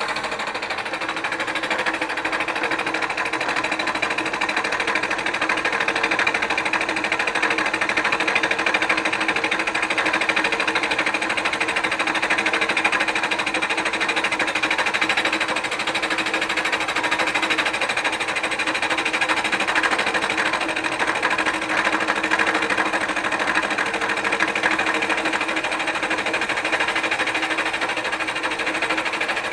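Milling machine running steadily while its cutter takes a pass across the pitted face of a cast-iron manifold, skimming the face flat so it will seal again. It is a continuous, even machining noise with a steady low hum under it.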